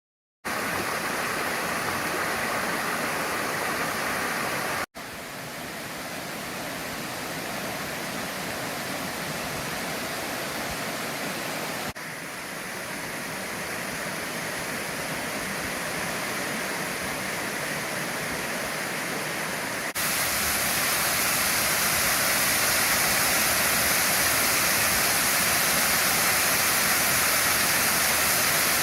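Cascade on a mountain stream: a steady rush of falling water. The rush changes abruptly in level three times, loudest and brightest from about twenty seconds in.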